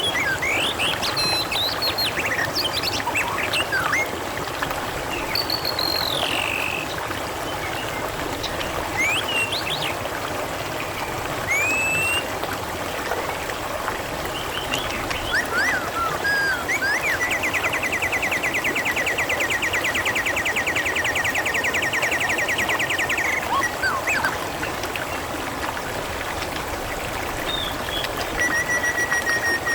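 Water trickling and gurgling steadily, with birds chirping and whistling over it in short calls and glides. A fast, even trill runs for about six seconds in the middle.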